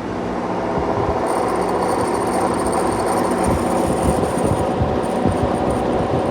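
Vernco K-3 box fan's General Electric motor running on high speed, a steady hum with air rushing at the microphone, building slightly over the first second or two as it comes up to speed, with a high whine coming in about a second in. Running on high, the motor sounds to the owner like it needs some work.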